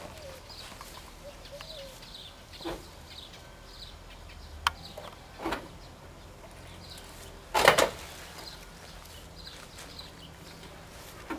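Corrugated sheet-metal shed door being worked by hand: a few knocks and clicks from the latch and panel, then a loud metallic clatter about eight seconds in.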